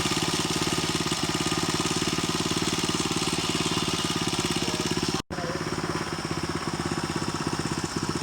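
Motorcycle engine running steadily with an even, rapid pulsing beat, cut off for an instant about five seconds in before carrying on.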